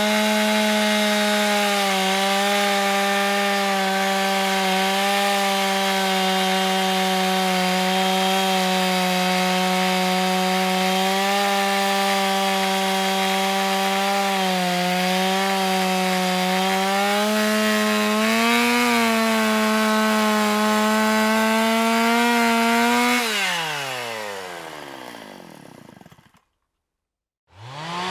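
Electric chainsaw running at a steady pitch with slight wavers, cutting wood. About 23 seconds in it is released and winds down with falling pitch to silence, then after a second of silence it starts up again with rising pitch near the end.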